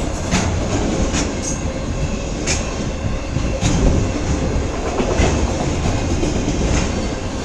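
Freight cars of a long CN manifest train rolling past close by: a steady rumble with sharp wheel clacks at uneven intervals as the wheels cross rail joints.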